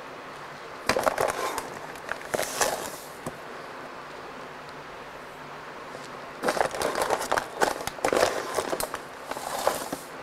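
A measuring cup scooping granulated sugar and pouring it into a plastic mixing bowl, in several short bursts of scraping and hissing.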